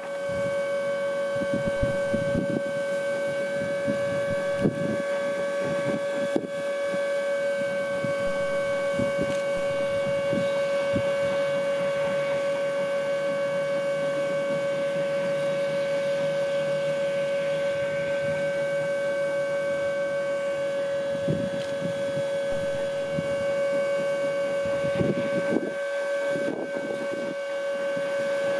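Steam rotary snowplough at work, with a loud, steady whistle-like tone held without a break over irregular low rumbling.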